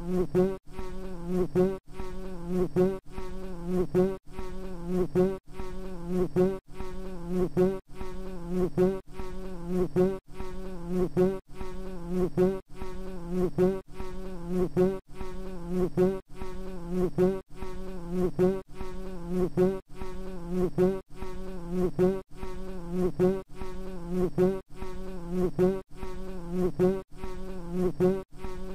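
A fly buzzing: a steady, low-pitched wing drone that breaks off briefly and comes straight back again, under a second apart, over and over.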